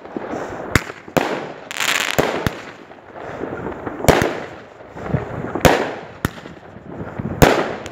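Multi-shot consumer fireworks cake (compact) firing shot after shot: about seven sharp bangs, roughly one every second, some of them followed by a hissing, crackling wash as the stars burst.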